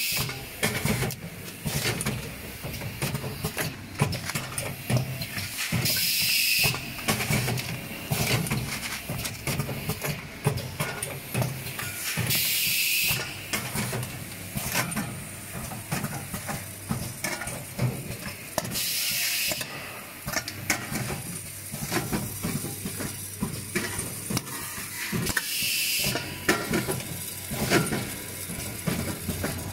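Automatic premade zipper-pouch packing machine running: continuous fast mechanical clicking and clatter over a low hum, with a short burst of compressed-air hiss from its pneumatic cylinders venting about every six to seven seconds, once per cycle.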